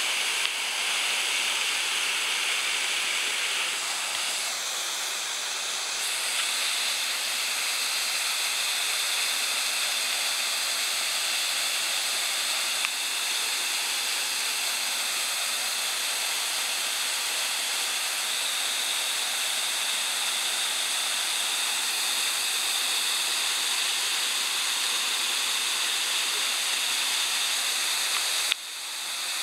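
Waterfall pouring into a pool, giving a steady rushing hiss of falling water that dips briefly near the end.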